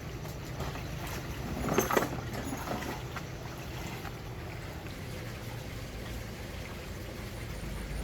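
Husqvarna 365 two-stroke chainsaw engine idling steadily, now running after its piston replacement, with a brief louder clatter about two seconds in.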